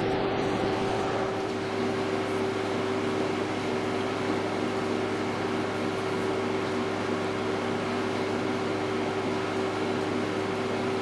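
Machine-tool motor running steadily, a constant hum with a few fixed tones over a noise bed; more tones join about a second and a half in.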